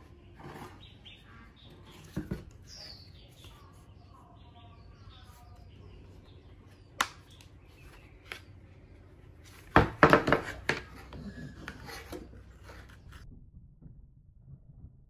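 Hard plastic parts handled and knocked against a table: light clicks and taps, one sharp click about seven seconds in, and a cluster of several loud knocks around ten seconds in. Birds chirp faintly in the background.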